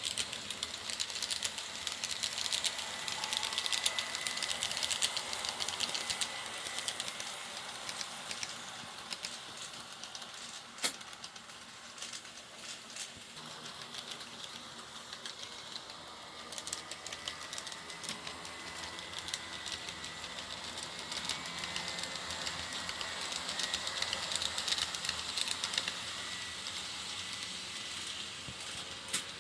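1/80-scale model electric train running on 13 mm gauge track, its wheels clicking rapidly over the rail joints with a faint steady motor whine. It gets louder twice, near the start and again from about 22 seconds in, as the train passes close, and there is one sharp click about 11 seconds in.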